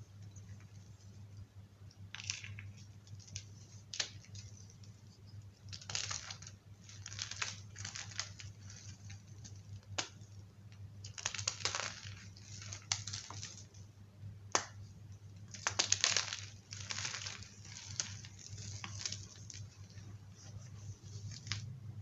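Gym chalk being crushed: a run of irregular crunches and crumbling rustles, with a few sharp snaps, over a steady low hum.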